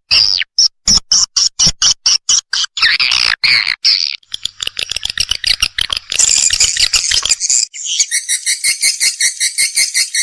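Swiftlet lure-call recording: swiftlets chirping and twittering in rapid, high-pitched bursts. Near the end it turns to a fast, even trill of about five pulses a second. A call played to draw swiftlets into a swiftlet nesting house.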